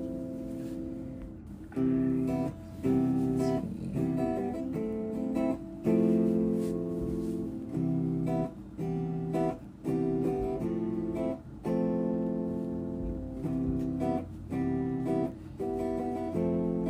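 Background music: acoustic guitar playing chords.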